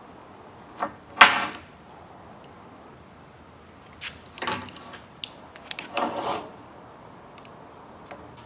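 Metal parts of a pedal cluster being handled on a metal workbench: separate clanks and scrapes, the loudest about a second in and a run of them between about four and six and a half seconds, with a light click near the end.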